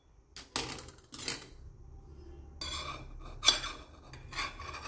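Serrated table knife scraping and clacking against a plastic plate while cutting and lifting a slice of firm gelatin dessert: a series of short scrapes, the sharpest clack about three and a half seconds in.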